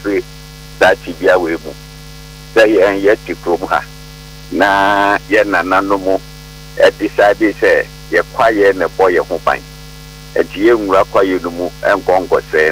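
Steady electrical mains hum, plainly heard in the pauses between phrases of talk.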